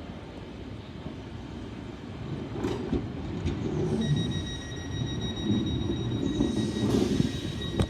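Class 465 Networker electric multiple unit at the platform: a steady low rumble of the train's running gear, with a steady high-pitched tone joining about halfway through.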